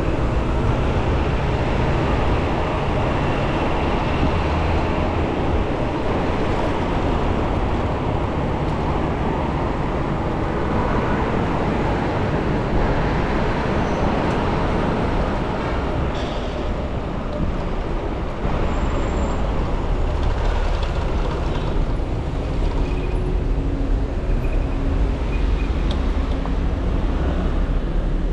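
Steady city street traffic heard while riding an e-bike among cars: car engines and tyres blended into an even noise with a constant low rumble.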